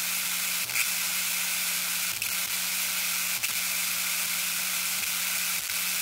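Old TV static sound effect: a steady white-noise hiss over a low steady hum. The hum drops out with brief glitchy crackles about five times.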